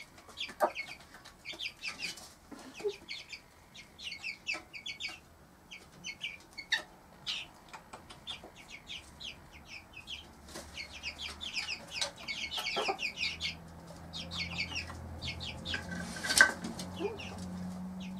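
Four-week-old Cuckoo Marans chicks peeping, a rapid run of short high chirps, with the mother hen clucking. A low steady hum comes in over the last few seconds, and there is one sharp click about sixteen seconds in.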